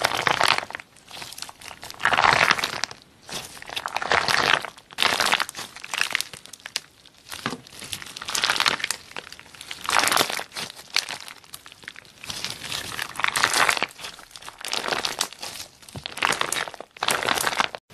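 Clear pink slime squeezed and kneaded by hand, giving crackling, crinkly squishes in repeated bursts about once a second. The sound cuts off abruptly near the end.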